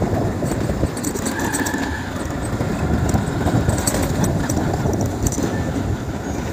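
Vehicle on the move: steady engine and road noise with scattered light rattles.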